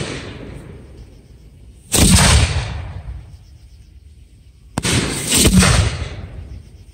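Aerial fireworks shells bursting: a sharp bang right at the start, a big boom about two seconds in and another about five seconds in, each dying away over a second or so.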